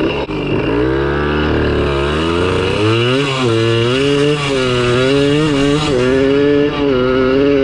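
1982 Kawasaki KDX80's small two-stroke single revving. Its pitch climbs over the first few seconds, then holds high with brief dips as the throttle is worked.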